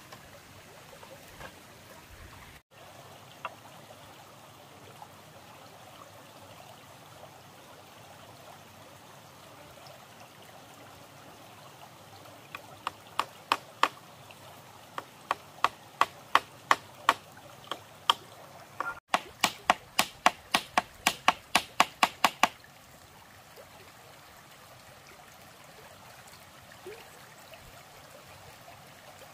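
A shallow stream flowing steadily over gravel. About halfway in comes a run of sharp hammer blows nailing bamboo slats to a wooden frame, getting quicker, several a second, before they stop.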